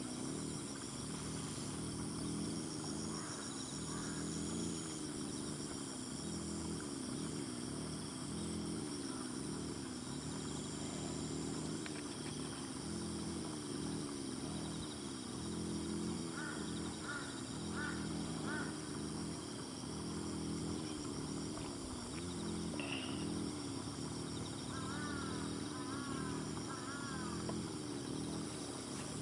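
Rice-field ambience: a steady high-pitched insect chorus over a lower continuous warbling, with a bird calling a few short repeated notes about halfway through and again near the end.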